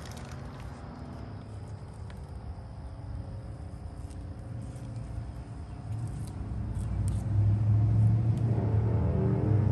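A motor engine running, a low steady-pitched hum that grows louder over the last few seconds.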